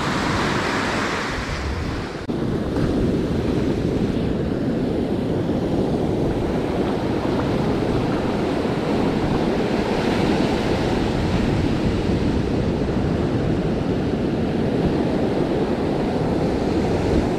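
Ocean surf breaking and washing up the beach in a continuous rush, with wind buffeting the microphone. A hissing wash of foam sounds close by in the first two seconds.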